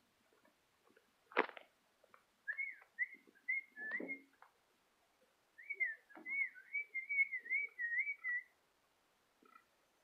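A person whistling to call a cat: first four short up-and-down notes, then a quicker warbling run. A single sharp knock comes about a second and a half in.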